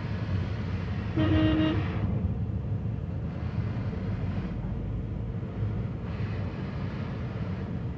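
Steady low road and engine rumble inside a moving car's cabin, with a vehicle horn honking once for under a second, about a second in.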